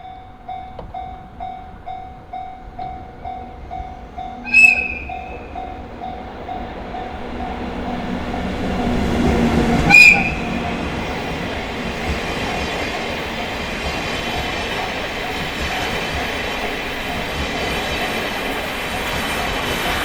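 Japanese railway level-crossing warning bell ringing in a steady rhythm, about two strikes a second. A train's horn sounds briefly twice, about five and about ten seconds in, while the rolling noise of the train builds and passes over the crossing, drowning out the bell for the rest.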